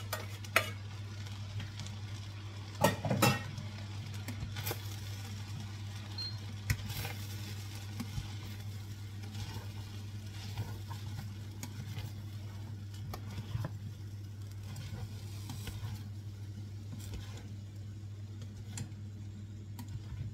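A utensil stirring and scraping fried rice in a frying pan, with a light sizzle from the pan. There are a few louder knocks in the first few seconds, then small clicks and scrapes, over a steady low hum.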